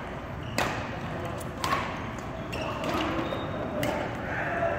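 Badminton rally: racket strings striking a shuttlecock in several sharp smacks, the loudest about half a second and a second and a half in, echoing in a large sports hall. Faint voices come in toward the end.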